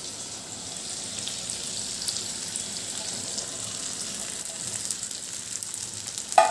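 Hot oil sizzling in a kadhai as soaked sago pearls coated in ground peanuts are tipped in onto fried potatoes and green chillies, with many small crackles from about two seconds in.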